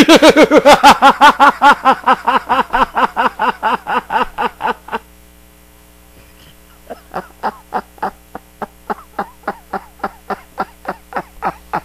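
A man laughing hard, a fast run of 'ha-ha-ha' about six a second that fades after about five seconds. After a short pause, quieter, breathier laughter picks up again at a slower pace.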